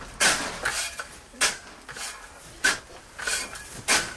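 A shovel scraping and turning wet salt as it is roasted, about six sharp gritty strokes at uneven spacing.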